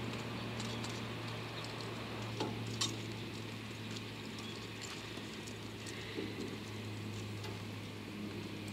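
Distant DD51 diesel-hydraulic locomotive running as it approaches slowly, heard as a steady low drone, with a couple of sharp clicks about two and a half and three seconds in.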